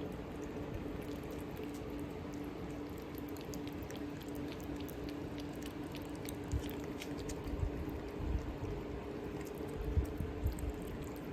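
Steady hum of a running household appliance, with faint, quick small clicks through the middle and a few low thumps near the end.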